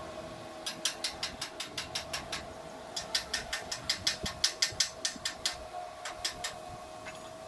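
A hammer tapping on steel: quick, even sharp taps, about five a second, in two runs with a short break, then a few more near the end. A steady hum sounds under them.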